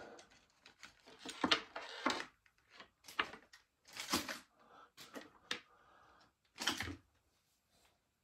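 Toy playset packaging being handled as a piece is taken out: an irregular string of sharp plastic rustles and clicks, about half a dozen louder ones.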